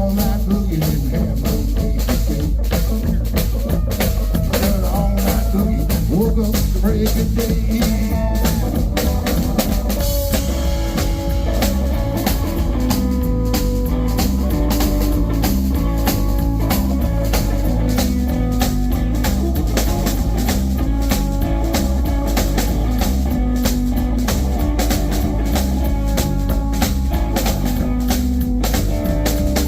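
Live blues band playing an instrumental stretch: a drum kit keeps a steady beat under a stepping bass line and a lead melody.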